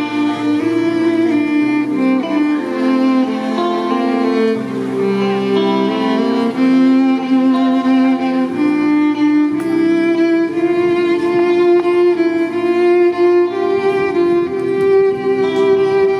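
Violin playing a slow melody of long, held notes over a recorded backing track with low bass notes, played through a loudspeaker.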